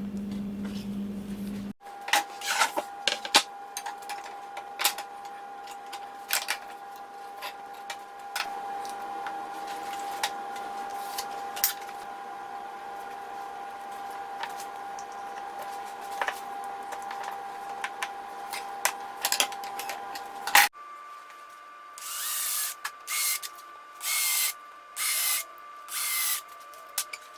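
Hand work on a wooden jig: scattered clicks and knocks over a steady hum, then, about 21 s in, five short, loud rasping strokes.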